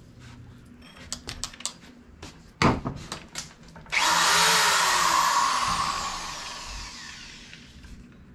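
Power drill with a hole saw boring through plywood subfloor. A few clicks and a sharp knock come first; about four seconds in the drill runs hard and loud, then its pitch falls and it fades as it slows over the next few seconds.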